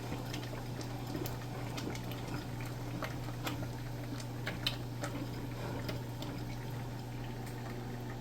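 Thick cornmeal porridge bubbling in a pot on the stove, with scattered small pops and clicks over a steady low hum.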